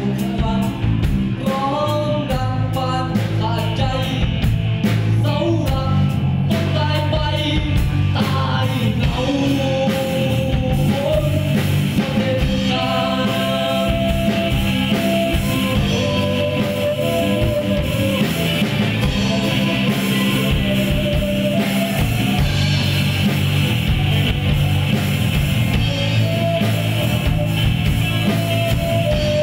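A live rock band playing: a violin carries a melody over electric guitar, bass guitar and drums.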